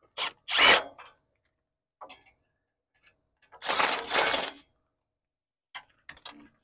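Metal hand-tool sounds: an Allen wrench clinking and scraping on the exhaust header's 6 mm bolts as they are backed out of the manifold one by one. It comes in a few short bursts, the longest about four seconds in, with light clicks near the end.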